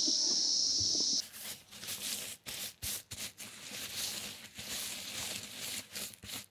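A steady high-pitched hiss cuts off about a second in. After it, dry crop stalks rustle and crackle in irregular handfuls as they are turned and spread by hand.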